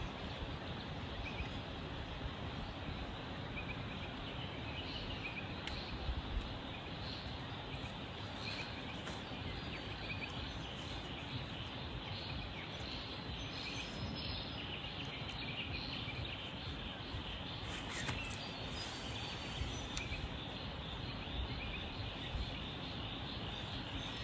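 Outdoor bush ambience: a steady background hiss with scattered short, faint bird chirps.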